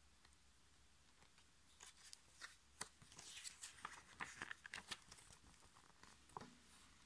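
Faint rustling and crackling of the thin paper pages of an instruction booklet being turned by hand, a quick run of crisp flicks through the middle, then one soft knock near the end.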